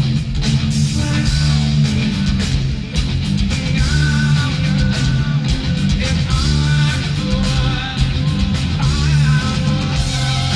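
A heavy rock band playing live, with electric guitars over bass and drums at a steady loud level.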